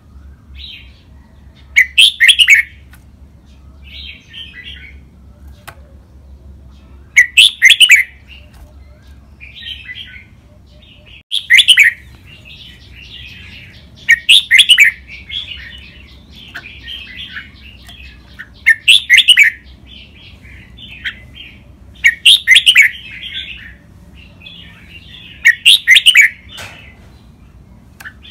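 Red-whiskered bulbul singing: loud short song phrases every three to five seconds, seven in all, with softer chattering notes between them.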